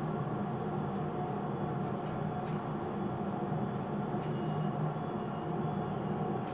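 A steady low hum with a couple of faint ticks about two and four seconds in.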